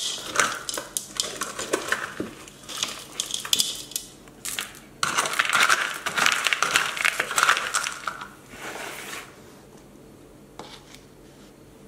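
Expanded clay (LECA) pebbles and bark potting mix rattling and crunching in a plastic bowl as a plastic scoop digs and stirs through it: a string of sharp clicks, then a denser rattle for about three seconds past the middle.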